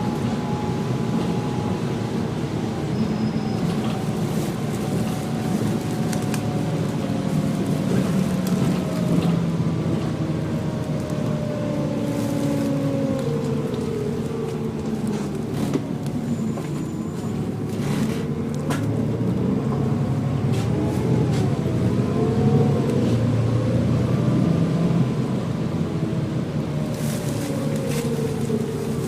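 Volvo B7TL double-decker bus on the move, heard on board: a loud whine that falls, rises and falls again in pitch as the bus changes speed, over steady engine and road noise. Occasional rattles.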